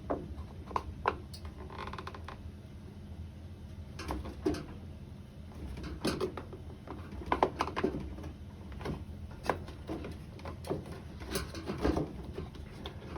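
Irregular plastic clicks and knocks as hoses are worked off a washing machine's soap dispenser housing, with the loudest cluster of knocks about seven seconds in.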